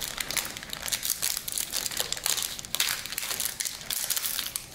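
Foil booster-pack wrapper crinkling as it is peeled open by hand: a dense run of irregular sharp crackles. The pack opens easily.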